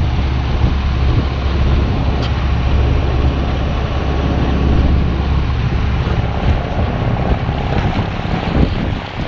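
Wind buffeting the microphone over water rushing along a sailing yacht's hull, with the boat's engine running underneath as it motor sails; a steady, loud rush with a deep rumble.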